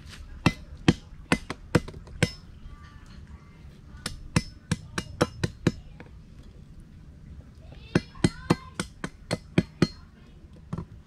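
Machete chopping a thin green bamboo stalk on a concrete slab: quick, sharp strikes, about three a second, in three runs with short pauses between.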